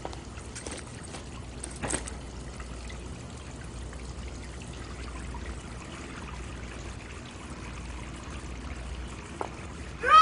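Steady trickle of running water from a washroom tap, with a couple of faint knocks about one and two seconds in.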